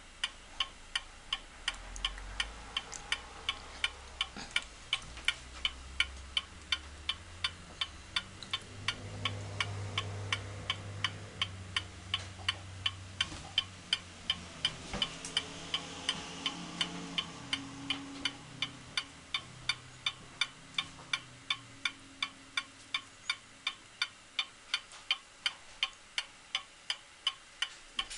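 Escapement of a ceramic Newark Clock Co. wall clock with a German eight-day movement ticking steadily, about three ticks a second.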